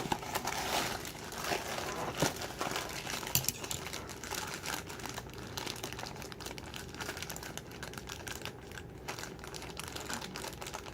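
A Funko Mystery Mini blind bag being handled and squeezed by hand, its packaging crinkling in a continuous run of small irregular crackles as the figure inside is felt through it.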